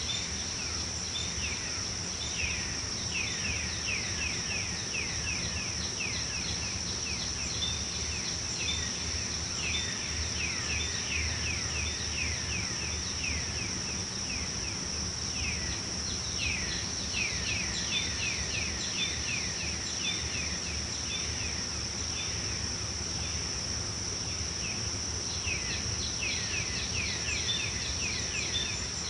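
Tropical forest ambience: a steady high insect drone, with a bird calling in runs of quick falling notes that come in bouts of several seconds, over a low background rumble.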